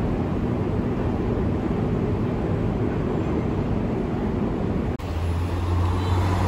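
Steady hum of an underground metro station concourse with escalators running. About five seconds in it cuts abruptly to street traffic, with a minivan's engine running as it passes close by.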